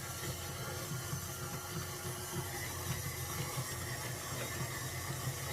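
Stand mixer running steadily on low speed, churning cultured sour cream that is close to breaking into butter.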